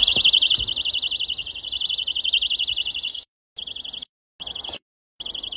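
A pull-pin personal safety alarm shrieks with a fast, high-pitched warble, going off suddenly as its pin comes out. After about three seconds it sounds only in short bursts, cut off by stretches of dead silence.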